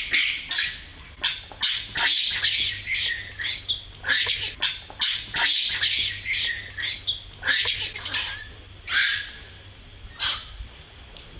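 Baby monkey crying: a string of high-pitched squealing calls, several arching up and then down in pitch, with a short lull near the end.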